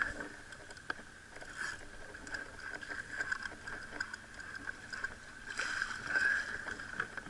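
Water lapping and sloshing around a kayak while a hooked striped bass fights nearby, with a louder splash about six seconds in as the fish breaks the surface at the bow. A faint steady high whine runs underneath.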